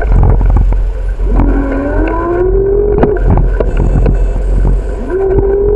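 Bicycle riding over a cracked asphalt path, heard through a bike-mounted camera: a steady low rumble with scattered knocks and rattles over the cracks. A humming tone rises in pitch about a second and a half in, drops out, and comes back steady near the end.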